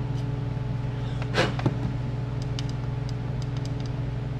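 A steady low hum runs throughout, with a brief rustle and scrape about a second and a half in, followed by a small click. The hum cuts off abruptly near the end.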